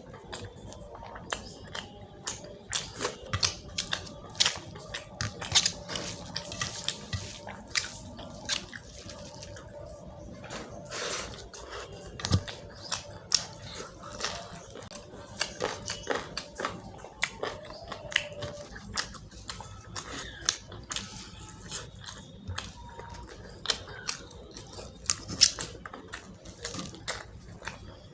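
Close-up chewing of rice with chicken curry: an irregular run of short clicks.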